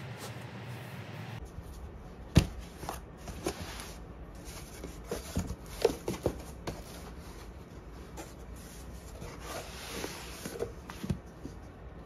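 Books and a cardboard shipping box being handled during unpacking: paper and cardboard rustling with scattered light knocks, one sharp knock a couple of seconds in. A steady hum at the start cuts off about a second in.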